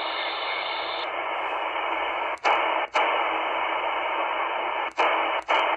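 Shortwave receiver hiss from an XHDATA D-808 in upper sideband on the 20 m amateur band, with no clear station: a steady band of static. About a second in the hiss turns duller as the audio bandwidth is narrowed, and it cuts out for an instant four times as the tuning is stepped up in frequency.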